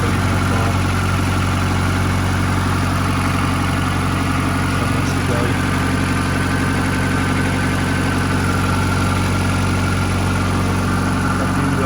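An engine idling steadily: a constant low hum that does not rise or fall.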